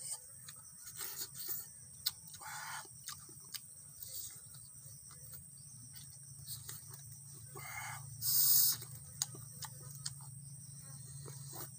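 Small mouth and finger clicks of someone eating by hand, with chickens clucking briefly twice, a few seconds apart. A short loud hiss-like sound comes about eight seconds in.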